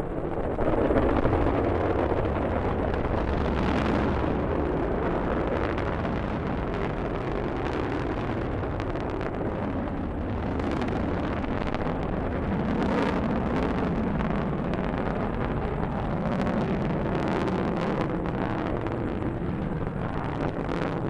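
Rocket engine noise during a launch: a steady deep rumble with scattered crackle, getting louder about half a second in.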